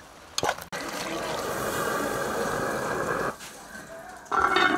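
Pot of curry goat sizzling and steaming as a metal skimmer stirs it, a dense hiss for about two and a half seconds. Near the end an aluminium pot lid scrapes and rings as it is set on a pot.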